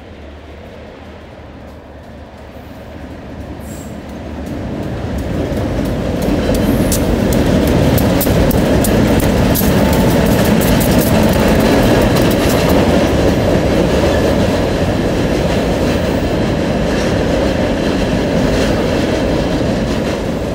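Six-axle diesel freight locomotive working hard as it hauls a train of scrap-metal gondolas over a girder railroad bridge. The engine sound builds over the first several seconds and then stays loud, with the clicking of wheels over the rail joints.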